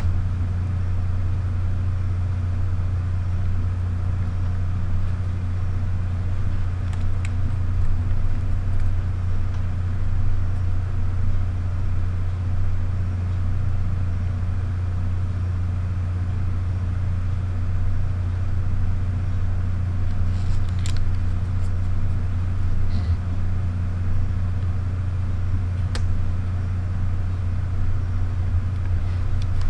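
A steady low hum with faint overtones, unchanging throughout. A few light clicks come from the camera bodies being handled, the sharpest about 26 seconds in.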